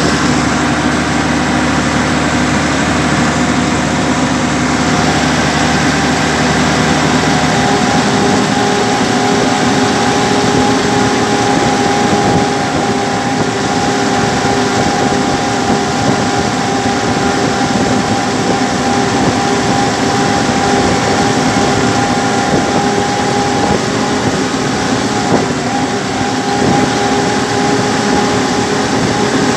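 Massey Ferguson 399 tractor's six-cylinder diesel engine running steadily as the tractor drives along. Its note shifts slightly about eight seconds in.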